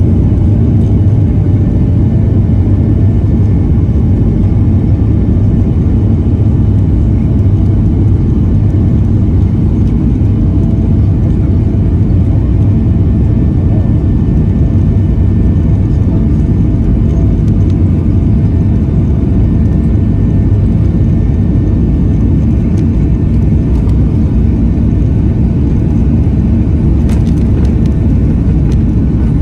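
Boeing 737-700's CFM56-7B jet engines at takeoff thrust during the takeoff roll, heard from inside the cabin over the wing: a loud, steady rumble with faint steady high tones above it.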